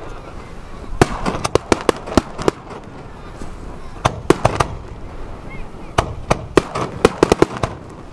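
Fireworks bursting in quick clusters of sharp bangs and crackles, three volleys a couple of seconds apart.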